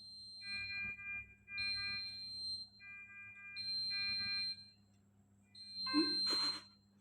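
Electronic alarm beeping in a repeating pattern: a high single beep about a second long alternates with a lower, several-note chime, one cycle about every two seconds. Near the end there is a short burst of hiss with a brief low sound.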